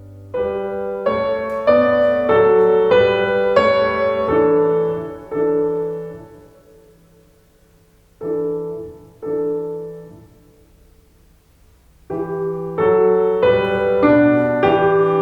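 Piano playing slow chords that ring out and fade. Around the middle come two lone chords, each left to die away almost to silence, and a quicker run of notes starts again near the end.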